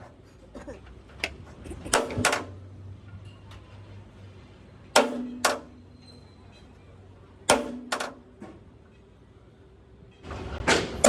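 Hammer blows on metal, struck in pairs or short runs every two to three seconds, several leaving a brief metallic ring.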